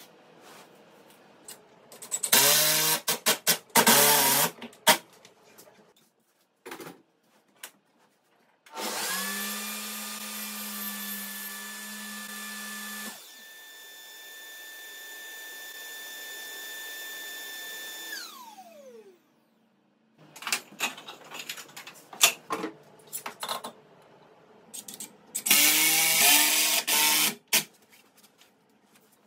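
Cordless drill driving in short revving bursts, twice. In between, a power-tool motor starts, runs steadily for several seconds, then falls in pitch as it winds down after being switched off.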